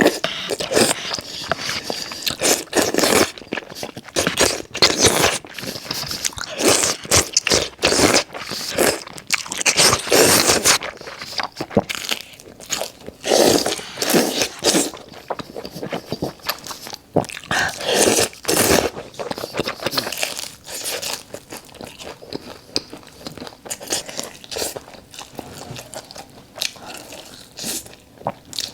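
Close-miked eating: crunchy bites and chewing in quick, irregular crunches. They are loudest through roughly the first half and grow softer in the last third.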